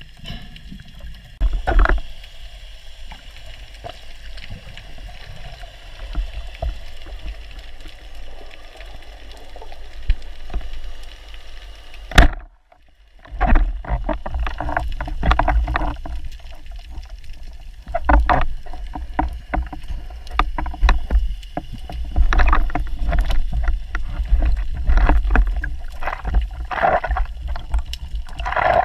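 Muffled underwater sound recorded from inside a diving camera housing: a steady low rumble of moving water, with knocks and clicks from handling the speargun and the fish. About twelve seconds in there is a sharp click and a brief dropout. The knocks come more often in the second half.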